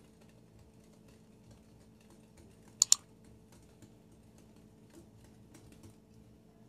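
Wire whisk stirring flour into cake batter in a glass bowl, faint light clicks throughout as the wires tick against the glass, with two sharp clicks close together about three seconds in.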